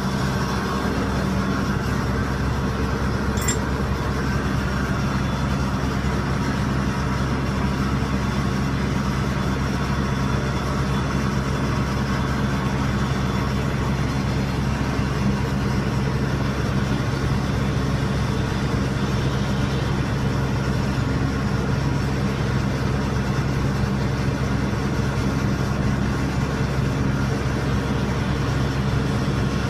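Heavy logging machine's diesel engine running steadily, a constant low drone. A single light click comes about three and a half seconds in.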